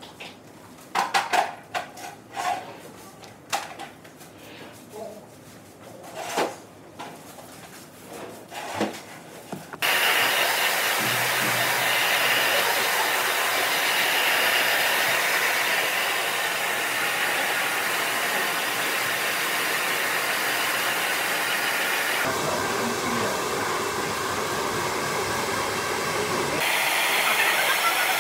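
Handheld hair dryer blowing steadily, switched on abruptly about ten seconds in, after several seconds of light clicks and knocks of handling.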